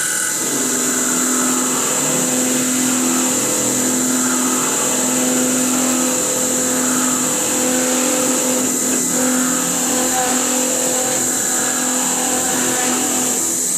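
CNC machining centre milling a profile: the spindle runs with a steady high whine over a constant lower hum as the cutter works.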